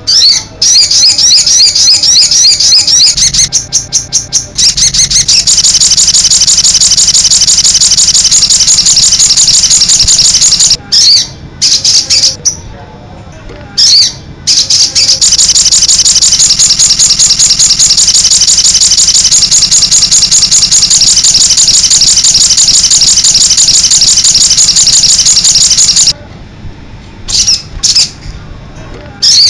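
Sogon (crested jay) calling loudly in a fast, continuous high-pitched rattle, kept up for long stretches with a few short breaks, then trailing off into a few short calls near the end.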